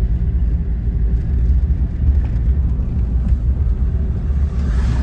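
Steady low road and engine rumble of a moving car heard from inside the cabin, with a little more hiss swelling near the end.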